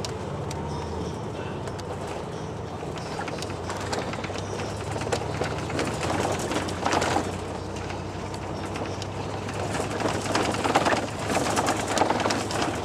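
A car driving through town streets, heard from inside: a steady low engine and road hum with a rushing haze, swelling louder for a moment about seven seconds in and again between ten and twelve seconds in.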